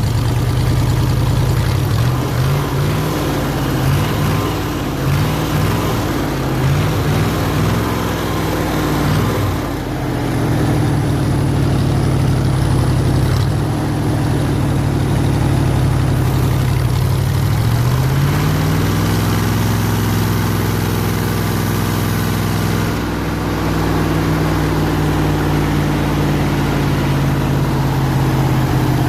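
The 302 air compressor's engine, on a points distributor, running with its speed rising and falling unevenly for the first ten seconds or so, then evening out. About eighteen seconds in it speeds up smoothly and holds a higher, steady speed.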